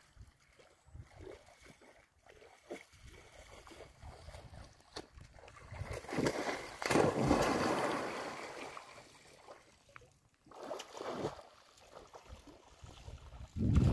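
Water splashing and sloshing in a shallow muddy pond as it is scooped and thrown with a bucket and kicked up by someone jumping in it. The splashing is loudest for a couple of seconds about midway, with a second, shorter burst a few seconds later.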